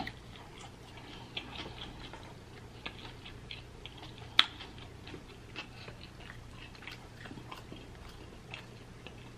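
A fried birria taco being chewed close to the microphone: many small crisp crunches, with one louder crunch about four and a half seconds in.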